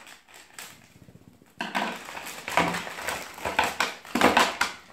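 Clear plastic packaging crinkling and rustling in loud bursts as Play-Doh tubs are handled and pulled out of their bag, starting about a second and a half in after a few faint clicks.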